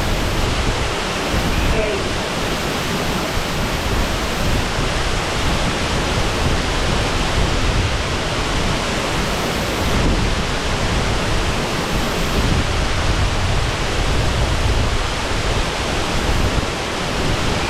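Shasui Falls' waterfall pouring steadily: a loud, even rush of falling water.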